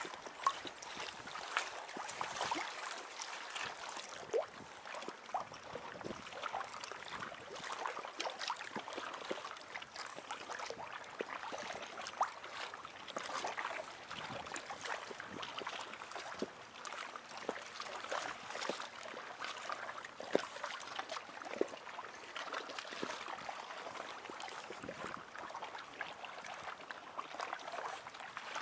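Small waves lapping and splashing against the rubberised side of an inflatable packraft, a steady wash broken by many small irregular splashes.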